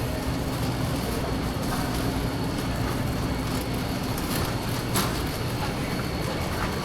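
Steady hum and rumble of a busy warehouse store, with a few brief clicks, one about five seconds in.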